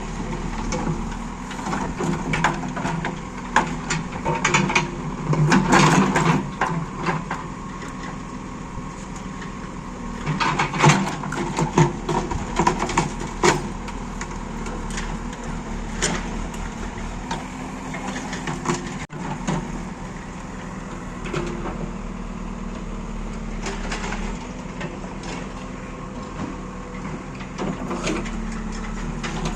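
A diesel engine running steadily, with frequent metallic clanks and knocks over it, thickest in the first half and sparser later.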